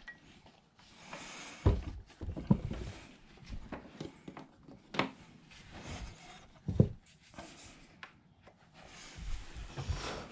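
Handling noise as cables are plugged back into a computer: a few scattered knocks and clicks, with some soft rustling.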